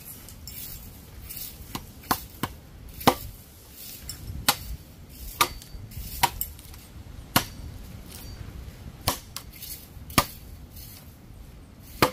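Chopping into brush at an uneven pace, about ten sharp chops roughly a second apart, to clear a patch so a fire won't spread.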